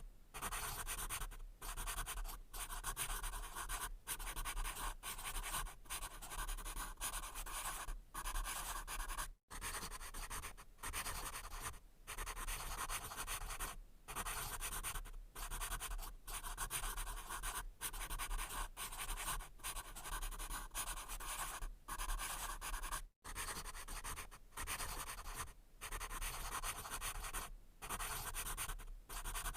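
Pencil scratching on paper in short writing strokes, with brief pauses between strokes every half second or so. The sound drops out completely for an instant twice.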